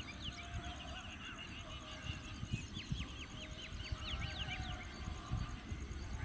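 Birds calling in open country, including a quick run of about nine chirps about two and a half seconds in, over a low uneven rumble.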